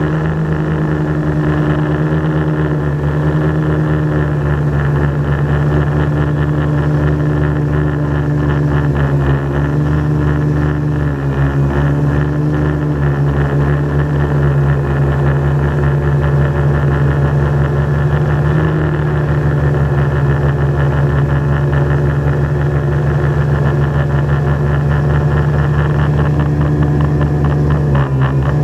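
Quadcopter drone's motors and propellers humming steadily in flight, picked up by its own onboard camera. The pitch shifts a little a few times and dips briefly near the end.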